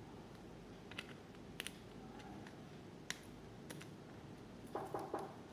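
Faint, scattered clicks and ticks of an NFC sticker being peeled little by little off a plastic phone battery cover, with a quick run of three or four knocks near the end.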